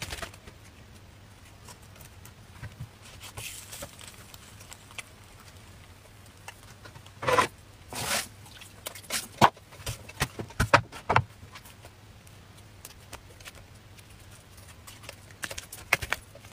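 Soft handling sounds of a thin egg crepe being scrunched by hand, with a cluster of sharp taps and knocks in the middle as things are set down.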